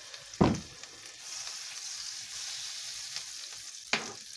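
Butter and vegetable oil sizzling in a hot non-stick frying pan, a steady hiss that sets in about a second in. A sharp knock comes about half a second in, and a smaller one near the end.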